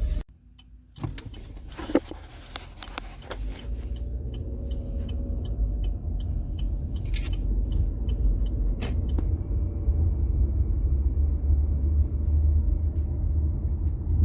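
Low rumble of a motor vehicle, quiet at first with a few clicks and knocks, then building to a steady, louder rumble.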